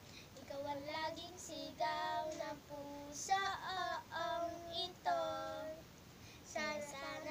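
Two young girls singing a song together in short phrases with brief pauses between the lines.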